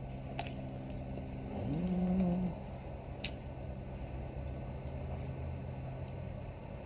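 Electric tram running with a steady low hum. About two seconds in, its motor note rises in pitch and then holds briefly. Two sharp clicks come, one early and one about three seconds in.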